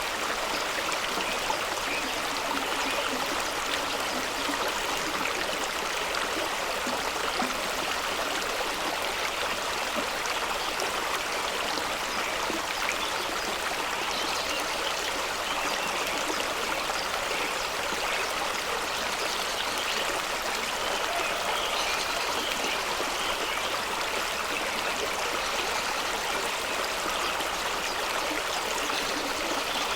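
Fast-flowing stream rushing over rocks with small waterfalls: a steady, even rush of water.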